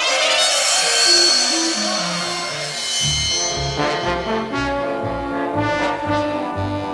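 Orchestral brass music. A held high chord sounds over a low line that falls step by step, then from about three seconds in a steady rhythmic bass figure plays under brass chords.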